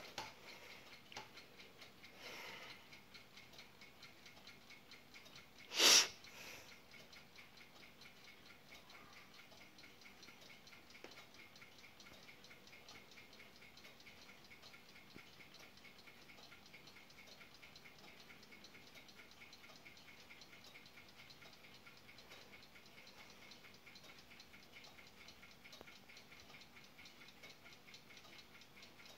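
Brass ship's clock by Observator Rotterdam ticking rapidly and evenly, its balance-wheel movement beating several times a second. One brief loud noise, a knock or rustle, cuts across it about six seconds in.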